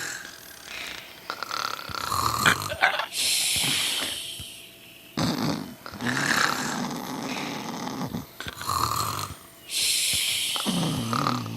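Snoring in slow breathing cycles, two loud hissing breaths about six seconds apart, with a lower rasping snore between them.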